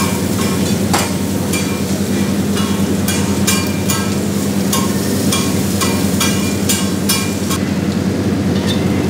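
Metal spatula clanking and scraping on a large iron tawa as roasted tandoori chicken pieces are chopped and stirred in sizzling ghee, about two to three ringing strikes a second that stop near the end. A steady low hum runs underneath.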